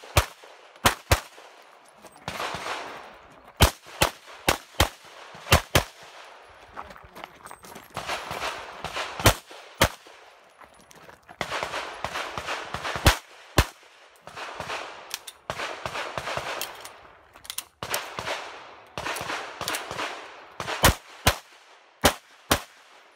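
Semi-automatic pistol fire during a practical-shooting stage: sharp shots, often in quick pairs, in irregular strings with short gaps as the shooter moves between positions.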